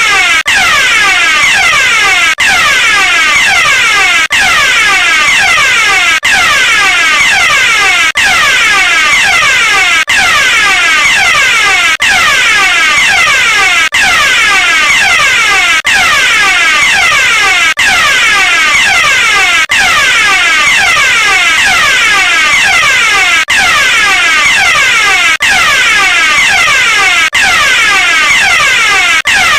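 Electronic fire alarm sounding loud and without pause: a tone sweeping down in pitch several times a second, with a brief break about every two seconds.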